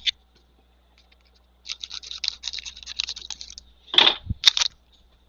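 Plastic wrapping being torn open and crinkled off a trading-card blaster box in rapid crackling rustles, followed by a few sharp knocks and a low thud of the box being handled.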